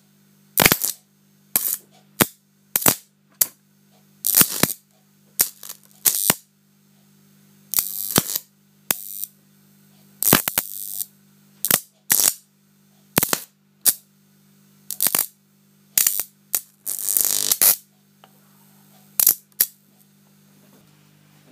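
High-voltage electric arcs from a 240 V mains supply with about 5 kV superimposed, struck again and again between a probe and a circuit board's components as they are burnt out: about twenty sharp pops, some brief and some sputtering for up to a second. A steady low hum runs underneath.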